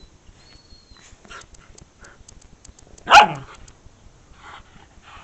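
Whippets playing: one short, loud bark that drops in pitch about three seconds in, with a few faint yips before and after it.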